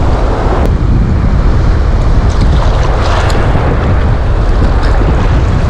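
Rough surf washing around a person wading, with wind rumbling on the camera microphone. The noise is steady and dense, heaviest in the low rumble.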